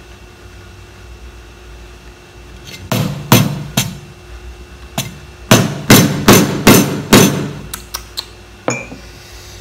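A hammer cracking hard mud crab claw shells with a series of sharp blows. Three blows come about three seconds in, then a quicker run of about six, roughly two to three a second, then a few lighter taps near the end.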